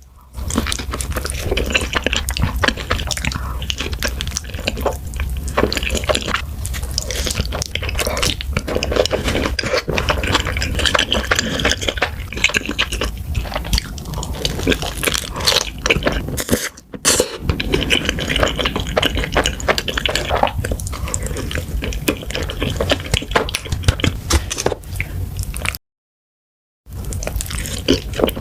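Close-miked eating sounds: wet chewing, smacking and slurping of food going on without a break. The sound cuts out completely for about a second near the end.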